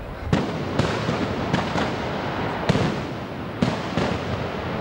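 Black-powder arquebus shots from a Moors and Christians mock siege: about six sharp bangs at uneven intervals, each with a short ring of echo, over a continuous noisy background.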